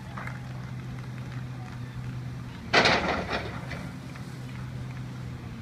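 Komatsu excavator's diesel engine running steadily while its demolition grab works into a brick building wall. A little under three seconds in comes a loud crash of breaking, falling masonry, fading over about a second.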